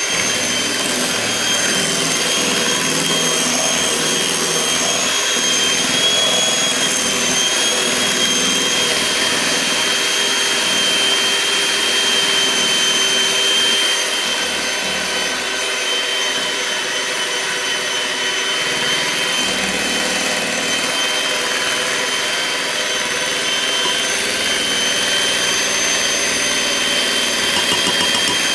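Electric mixer motor running steadily as it beats cake batter, with a steady high whine over the whirr of the beaters.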